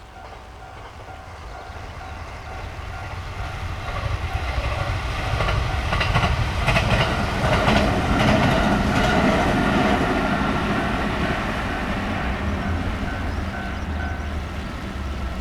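Train approaching and passing over a level crossing on the Hokuriku Main Line, its running noise swelling to a peak about halfway through and slowly fading. Under it the level-crossing warning bell rings steadily and stops near the end.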